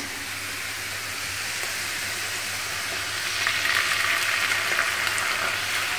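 Chopped onions frying in hot ghee, a steady sizzle that grows louder about three and a half seconds in as tomato and ginger puree is scraped into the pan.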